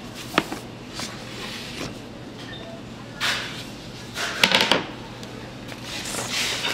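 Wooden boards knocking and clattering on a work counter as a large castella sponge cake is flipped between them: one sharp knock about half a second in and a burst of rattling knocks a little past four seconds. Near the end comes the rustle of baking paper being peeled off the cake's top.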